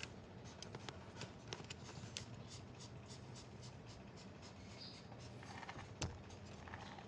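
Faint scattered clicks and rustles of a Shih Tzu shifting on towels under a stroking hand, with one sharper click about six seconds in, over a steady low hum.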